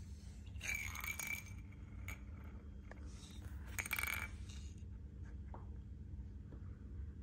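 A small hard plastic cap clattering and skittering across a ceramic tile floor as a cat bats at it, in a few short rattling bursts with a faint ring, the loudest about four seconds in, then a few light ticks.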